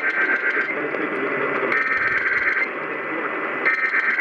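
Emergency Alert System SAME header opening a Required Monthly Test: three short bursts of buzzing two-tone digital data, each under a second long and about a second apart. Heard through a radio receiver over a steady hiss of static.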